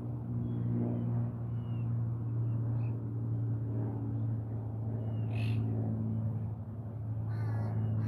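Steady low motor hum, with a few faint, short bird chirps over it, a brief sharp sound about five seconds in, and a short run of wavering calls near the end.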